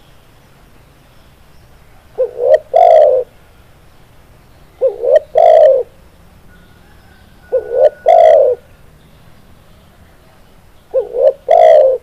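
Spotted dove cooing: four calls spaced about three seconds apart, each two quick short notes followed by a longer drawn-out coo.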